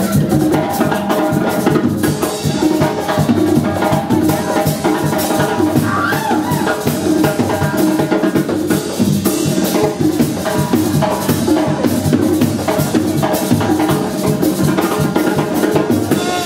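Live Mexican banda music, loud and dense, driven by a steady, even drum beat.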